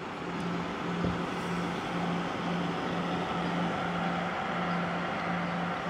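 Small 12 V water-cooling pump running, circulating coolant through the LED water blocks: a steady whir with a low hum that throbs about twice a second.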